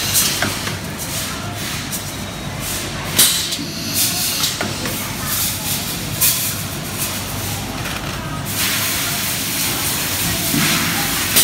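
Pneumatic resistance welding machine at work: a steady machine hum under several short air hisses and clicks as its air cylinders actuate, with a longer hiss near the end.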